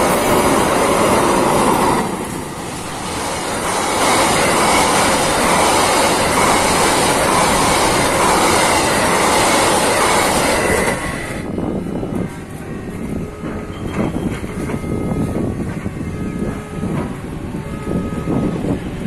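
Trains passing at speed a few metres away: a container freight train, then a passenger train, their wheels running over the rails in a loud, steady rush, with a brief dip about two seconds in. About eleven seconds in the rush cuts off to a much quieter background.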